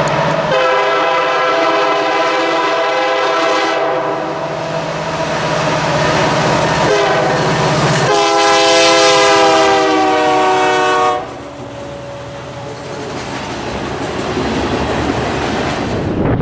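Multi-chime air horn of a BNSF EMD GP60M leading a freight train, sounding long, short, long, the close of a grade-crossing signal; the last blast is held about three seconds. Then the rumble of the approaching train grows louder.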